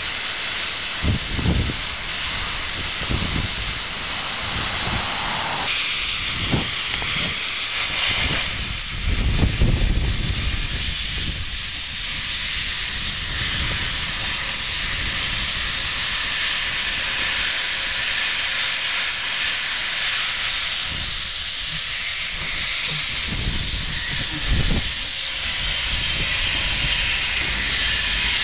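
Steam locomotive letting off a steady hiss of steam, with wind buffeting the microphone in gusts.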